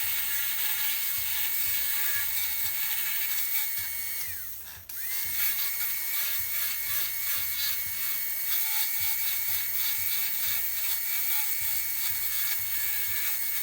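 High-speed dental handpiece with a fissure bur whining steadily as it cuts a lower molar during cavity preparation. It winds down and stops about four and a half seconds in, then spins straight back up about a second later. Faint background music underneath.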